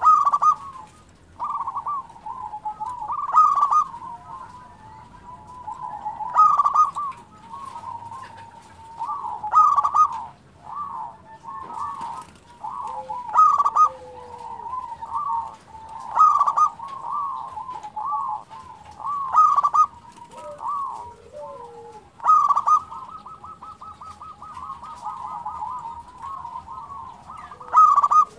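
Zebra dove (perkutut) cooing over and over: rolling notes near one pitch, with a louder phrase about every three seconds. About two-thirds through comes a fast run of repeated notes.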